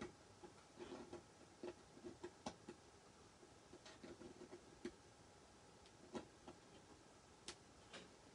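Faint, irregular small clicks and taps of fingertips and nails picking at a stencil on the edge of a wooden box frame.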